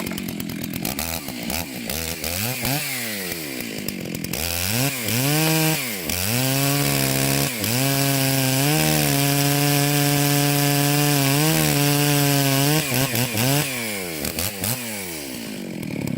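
Stihl 064 two-stroke chainsaw, an old and seldom-used saw, running after being started: it is blipped up and down several times, held at high revs for about five seconds, then drops back to idle near the end, showing it still runs.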